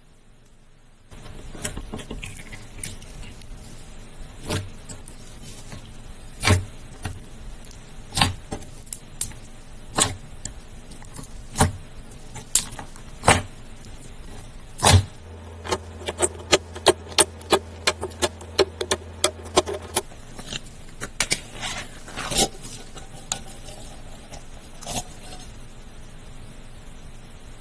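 Slime being worked by hand, giving a series of sharp, irregular pops and clicks, with a quicker run of them in the middle.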